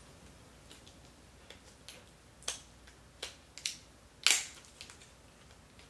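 Hands handling and opening cosmetic packaging: a scatter of small clicks and crinkles, with a sharper snap about four seconds in.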